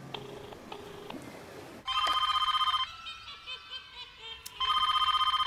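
Telephone ringing: two loud rings, each about a second long, the first about two seconds in and the second near the end.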